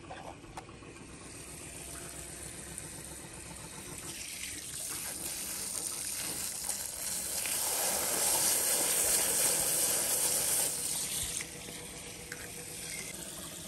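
Water jetting from a thin hose onto a small toy car in the grass. The rushing spray grows louder over several seconds, then cuts off sharply near the end.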